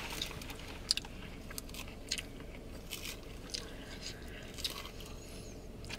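Close-up chewing and crunching of a fresh lettuce salad, with scattered short, sharp clicks and crunches.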